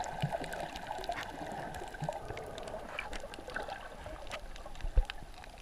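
Underwater sound picked up by a submerged camera while snorkeling: muffled water movement with many faint scattered clicks and crackles. There is one louder thump about five seconds in.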